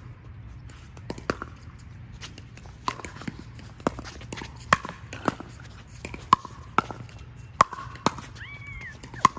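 Pickleball paddles hitting a hard plastic ball in a fast doubles rally: about a dozen sharp, hollow pocks at an uneven pace. A brief high squeak comes near the end.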